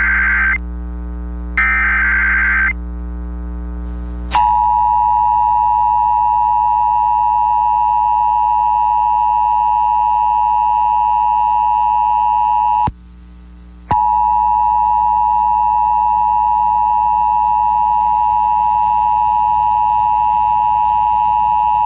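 Emergency Alert System broadcast: the end of the SAME digital header, two roughly one-second screeching data bursts, followed by the EAS two-tone attention signal (853 and 960 Hz sounding together) held steady. The attention tone breaks off for about a second near the middle, then resumes.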